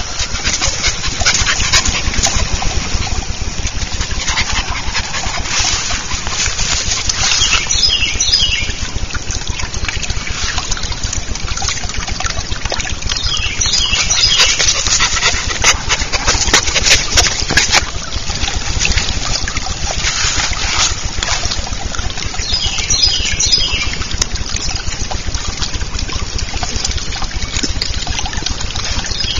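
Steady rustling and handling noise with many small clicks as a puppy tugs at a rag in the grass. Short bursts of high, quickly falling bird chirps come a few times.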